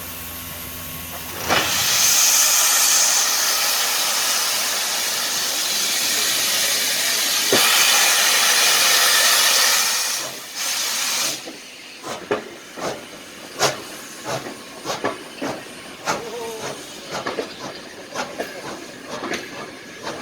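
Steam locomotive blowing off steam with a loud, steady hiss for about ten seconds, which stops suddenly; then the locomotive moves with a run of irregular sharp knocks and short squeaks from its running gear.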